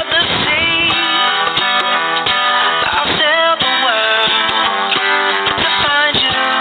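Music with guitar, playing continuously.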